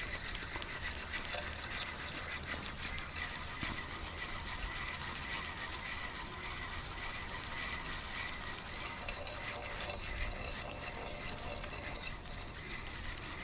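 Spinning reel being wound steadily while a hooked fish is played on a float rod, a thin steady whine running through most of it, over water noise.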